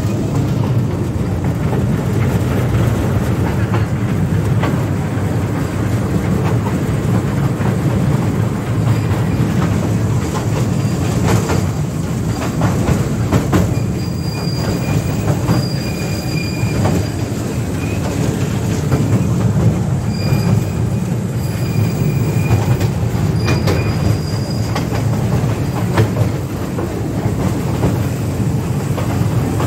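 Museum toy train running, heard from aboard: a steady low rumble with clicks of the wheels over the rail joints. A high, thin wheel squeal comes and goes in two stretches around the middle.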